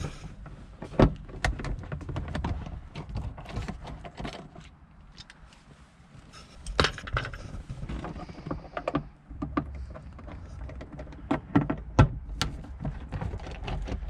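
Irregular small clicks and knocks of a screwdriver turning a T15 Torx screw in a plastic sun visor clip, with the trim and tool being handled; the sharpest clicks come about a second in, midway and near the end.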